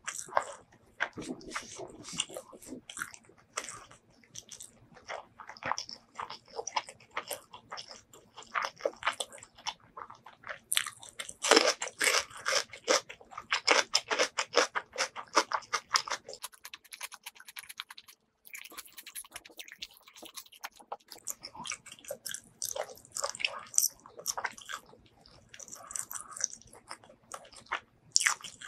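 Close-miked chewing of a hand-fed mouthful of rice and curry, a dense run of quick mouth clicks and crunches, loudest about halfway through. The chewing briefly drops away about two-thirds of the way in, then carries on.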